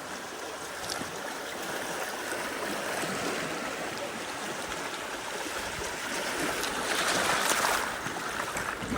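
River water rushing and splashing around a bamboo raft as it drifts downstream. The sound is steady, swelling louder about seven seconds in.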